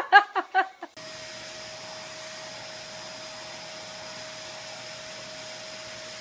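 Upright vacuum cleaner running steadily, with a constant whine over its noise, its hose wand held against a cat's fur. It starts suddenly about a second in.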